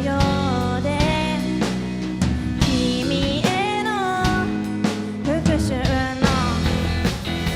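Rock band playing live with drum kit and a sung melody over dense, sustained low notes, with steady drum hits throughout.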